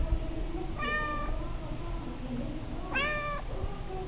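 A grey domestic cat meowing twice, two short meows about two seconds apart.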